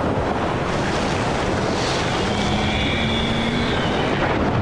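Heavy surf crashing and washing over a rocky shore, loud and steady, with a faint high drawn-out tone over it from about two seconds in.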